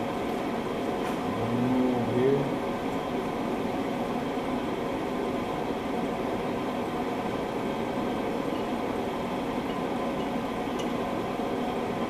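A steady machine hum with a hiss, made up of several fixed tones, with a few faint clicks and a short low sound about two seconds in.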